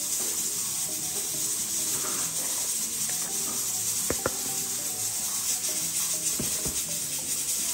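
Cornmeal poured and spooned from a plastic tub into a bowl of flour: a soft granular rustle, with a sharp tick of the spoon against the tub about four seconds in and another near six and a half seconds, over a steady hiss and faint background music.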